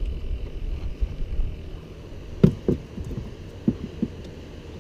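A few knocks on a bass boat: two about halfway through, the first the loudest, and two more near the end, over a low rumble of wind and water against the hull.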